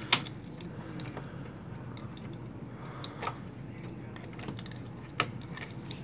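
Scattered clicks and rustling of power-cable wires and plastic connectors being handled and pressed into place inside a SPARCstation 20's metal chassis, with a few sharper clicks, the loudest right at the start.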